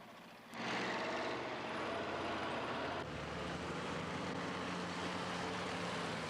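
Heavy military convoy vehicles (trucks and armored vehicles) with engines running as they roll past, cutting in suddenly about half a second in: a steady engine drone under a loud rushing noise.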